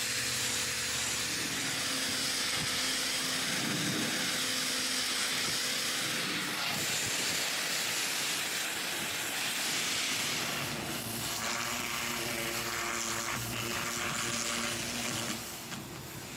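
Pressure washer spraying water to rinse dust off the bus body: a steady hiss, with a faint hum from the machine underneath that grows stronger in the second half.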